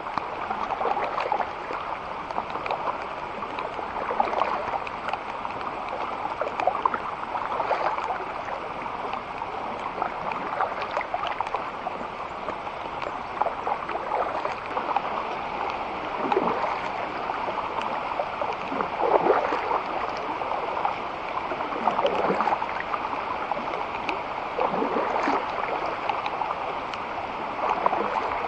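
Water splashing and gurgling along a kayak on a moving creek, with paddle strokes swishing through the water about every three seconds in the second half.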